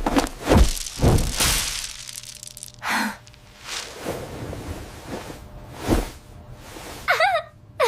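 Synthetic ASMR eating sounds: a string of sharp crunches and taps, with swishing sweeps in between and a short warbling squeal just after seven seconds in.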